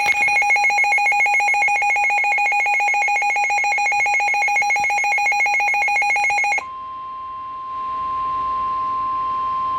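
Emergency Alert System alert tones announcing a severe thunderstorm warning. First comes the harsh, fast-pulsing two-tone attention signal for about six and a half seconds. It then switches abruptly to a single steady pure tone, the NOAA Weather Radio warning alarm, for the last three seconds.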